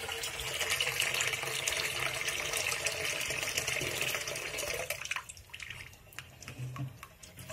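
Kitchen tap running into an aluminium bowl of eggs in a stainless-steel sink, rinsing them, until the water is turned off about five seconds in; a few light clicks and drips follow.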